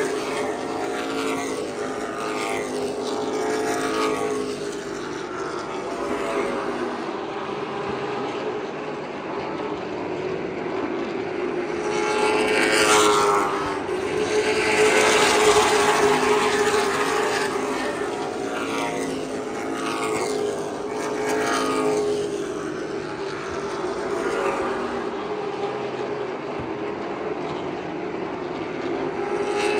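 Stock race cars running laps on a paved oval, their engines rising and falling in pitch as they pass by one after another, with louder passes about halfway through and near the end. A steady drone runs underneath.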